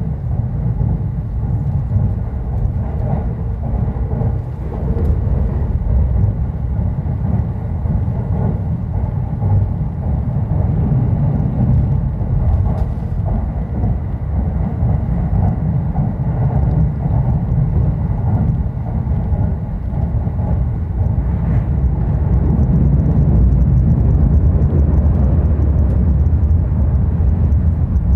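Inside a Marine Liner rapid train running at speed: a steady low rumble of wheels on rail. It gets louder about two-thirds of the way through, as the train runs out onto the steel truss bridge.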